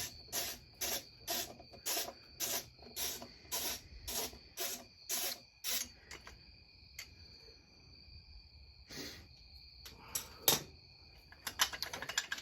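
Ratchet wrench being swung on a bolt: rasping strokes about twice a second, which stop about six seconds in. Two single scrapes follow, then a run of quick clicks near the end.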